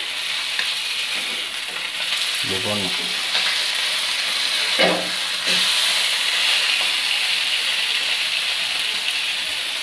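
Masala-marinated oodan fish frying in hot oil in a kadai: a steady sizzle that gets louder about five and a half seconds in, as the fish are turned over.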